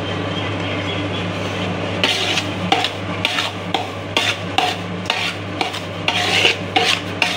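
A perforated steel ladle scrapes and stirs semolina roasting in a large aluminium pot. It begins as a continuous scraping, then breaks into distinct strokes about twice a second from about two seconds in.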